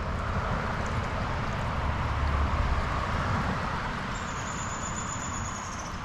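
River water flowing steadily in a tailwater, an even rushing with a low rumble underneath. A faint, thin high whine comes in about four seconds in.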